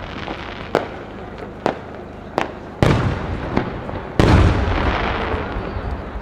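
Aerial firework shells bursting in the sky. Several sharp cracks come about a second apart, then two heavy booms about three and four seconds in. The second boom is the loudest and is followed by a long, rolling rumble.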